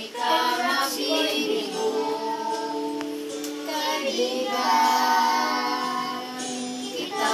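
Children and a woman singing together, holding long steady notes and moving from note to note.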